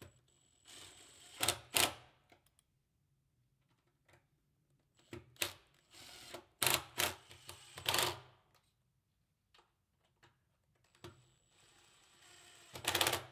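Cordless impact driver driving wood screws into a wooden wall cleat, in three bursts of a second or two each, with a high whine and rapid clattering.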